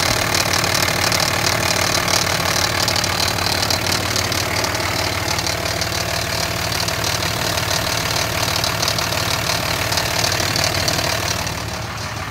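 2005 Cummins 5.9 inline-six turbo-diesel idling steadily with a rattling, grinding noise: a dense, fast ticking over the engine's drone. It gets a little quieter near the end.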